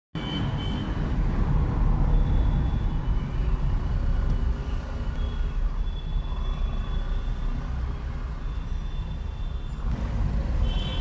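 Low, steady rumble of a car's engine and tyres heard from inside the cabin while driving slowly in traffic, with faint high tones coming and going over it.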